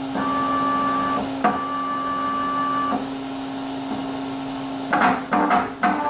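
Leadshine 863S68H stepper motor running with a steady hum and a higher whine during two moves. About five seconds in the sound turns choppy and stuttering as the motor stalls under a light grip, which the owner takes as a sign that something is wrong with the motor.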